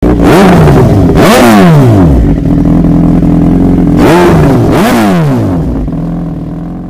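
2011 Suzuki GSX-R 1000's inline-four engine revving through an aftermarket Racefit slip-on exhaust: two pairs of quick throttle blips, each rising in pitch and dropping back to idle. It then idles steadily, fading away near the end.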